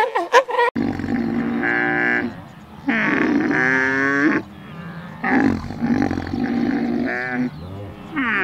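Alpaca giving a series of loud, drawn-out calls, each about a second long with a wavering pitch, separated by short pauses. A few short, sharp calls come just before them at the very start.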